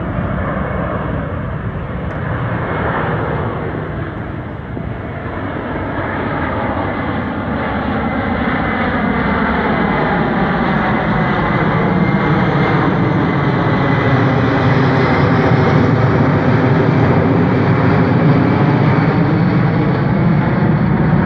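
Boeing C-17 Globemaster III flying overhead, its four turbofan engines making a continuous rumble with a thin steady whine. It grows steadily louder as the aircraft comes closer.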